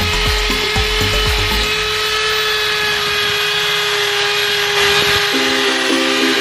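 Hand-held electric drill spinning a foam polishing wheel against an aluminium motorcycle engine casing: a steady motor whine with rubbing, and some low knocks in the first couple of seconds. The tone shifts about five seconds in as the wheel is moved over the casing.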